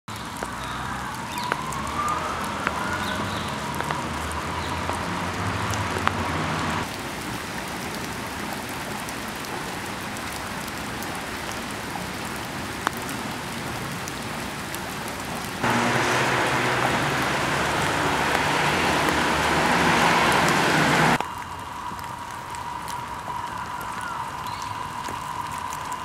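Wet snow and sleet falling, an even pattering hiss like light rain, with a few faint ticks of single drops. It grows louder for about five seconds past the middle.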